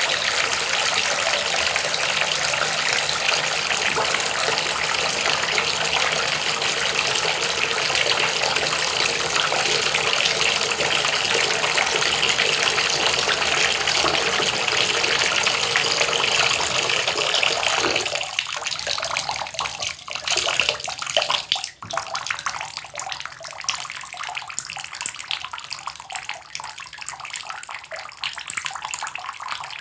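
Running water, steady and even for about eighteen seconds, then it drops to a quieter, uneven sound with a sharp click a few seconds later.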